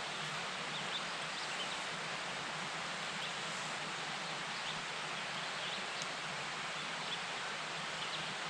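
Steady outdoor ambience at a pond bank: an even rustling hiss with faint, scattered high chirps of distant birds.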